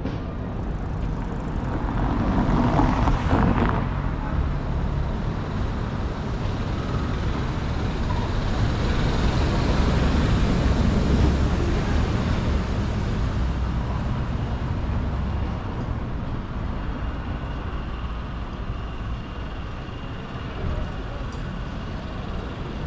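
Street traffic: motor vehicles passing close by over a steady low rumble, with one pass swelling about three seconds in and a longer one around ten seconds in.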